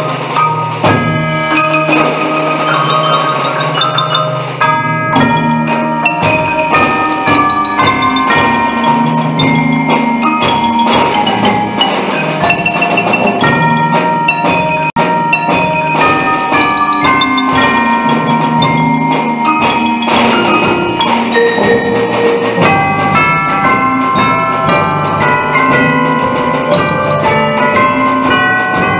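Percussion ensemble of marimbas, xylophone and glockenspiel playing a piece in a continuous stream of short struck notes over a low marimba bass line.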